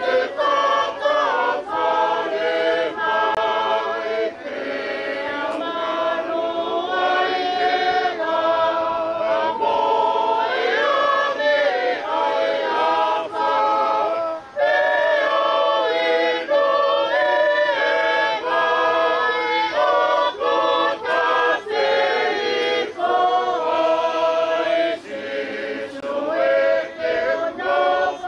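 A choir singing a hymn unaccompanied: many voices in harmony holding and moving between sustained notes.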